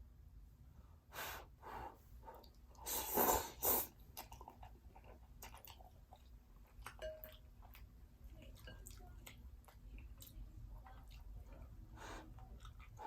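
A person biting and chewing fried seafood: a few loud crunchy bites, the loudest about three seconds in, then quieter chewing with small wet clicks.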